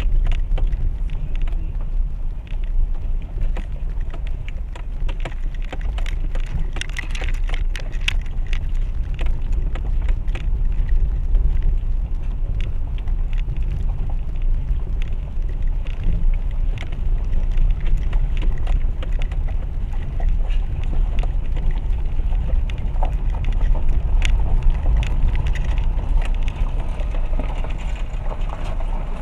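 Renault Duster crawling over a rocky mountain dirt road: a steady low rumble from the engine and tyres, with frequent clicks and knocks from stones and gravel under the wheels.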